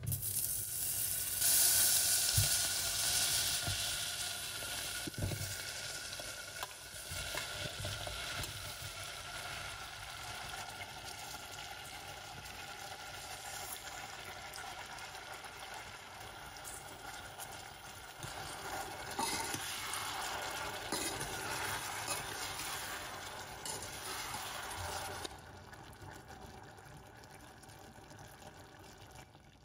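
Butter and sliced peaches sizzling in a stainless steel saucepan, with a spoon knocking against the pan a few times. The sizzle is loudest in the first few seconds, swells again later, and drops off sharply a few seconds before the end.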